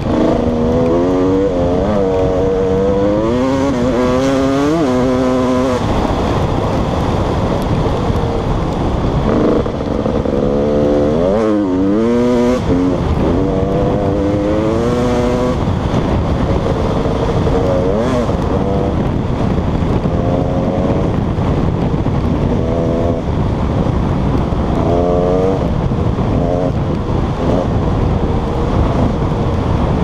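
Dirt bike engine revving hard under way, its pitch climbing and dropping back again and again as the rider works the throttle and gears, over a steady rush of wind and trail noise.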